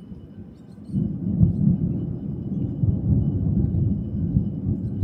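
Thunder rumbling: a low roll that sets in suddenly about a second in and keeps rolling with swells of loudness.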